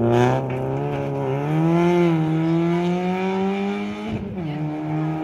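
Rally car engine accelerating hard out of a gravel corner: the revs climb steadily for about four seconds, then drop sharply at an upshift and hold steady as the car pulls away.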